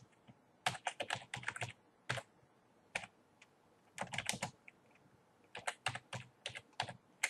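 Typing on a computer keyboard: quick runs of keystrokes in several short bursts, with pauses of up to about a second between them.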